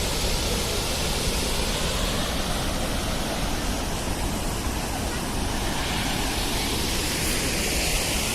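Waterfall: the steady rush of falling water, even and unbroken.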